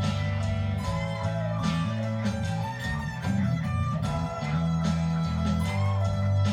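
Electric guitar jamming over a slow psychedelic blues backing track in E Dorian at 75 bpm, with sustained bass notes and a steady drum beat, the lead line bending its notes.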